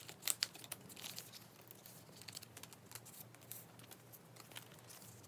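Faint crinkling of clear plastic binder sleeves as photocards are slid in and out of their pockets, with a couple of sharper clicks about half a second in.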